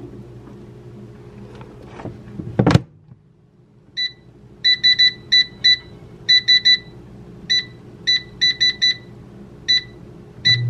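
A loud clunk a little under three seconds in, then an air fryer's digital control panel beeping once per button press: about sixteen short, irregularly spaced beeps as it is set for temperature and time.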